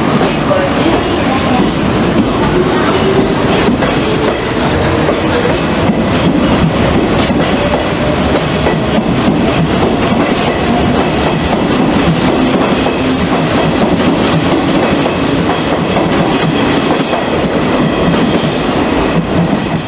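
Hanshin 8000-series electric train pulling out and speeding up, its motor whine rising steadily in pitch over the first half, with wheels clicking over rail joints.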